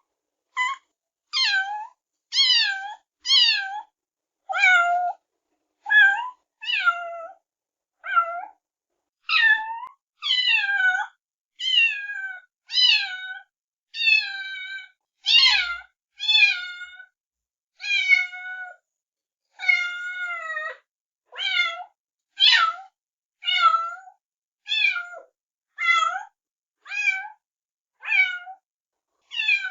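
Kittens meowing over and over, a short high-pitched meow roughly every second, most of them sliding down in pitch.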